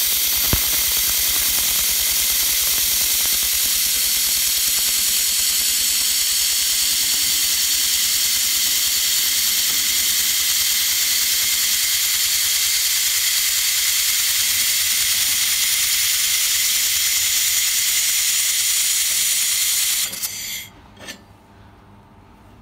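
Handheld 1500 W fiber laser welder running a continuous weld along a steel joint: a loud, steady hiss that cuts off about 20 seconds in when the weld stops.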